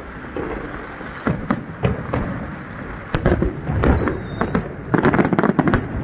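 Aerial firework shells bursting overhead: a string of sharp bangs and cracks over a low rumble, coming thick and fast in the last second or so.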